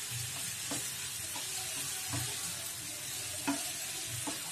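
Wooden spatula stirring fried chicken pieces through thick masala in a nonstick frying pan over low heat, each stroke a soft scrape or knock about one and a half times a second, over a steady sizzle from the pan. One slightly sharper knock about three and a half seconds in.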